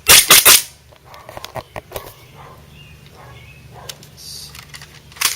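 KWA Glock 18c gas blowback airsoft pistol firing a fast burst of three shots, each a sharp pop with the slide cycling, then quieter handling clicks and one more shot near the end.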